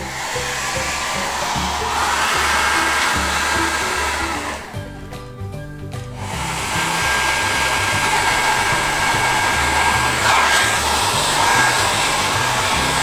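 TESCOM TID2200TW hair dryer running on test, working again after its broken power cord was resoldered: a steady rush of air with a thin, high whine. About five seconds in it cuts out for a second and then starts up again.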